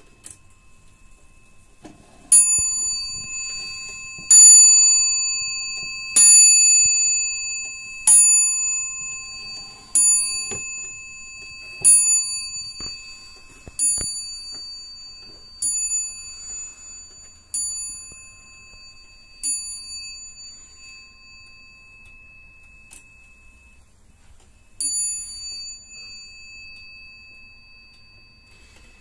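Dutch Friese tailed wall clock striking the hour on its bell: ten evenly spaced strikes about two seconds apart, each ringing on and fading, then one more strike about five seconds after the tenth.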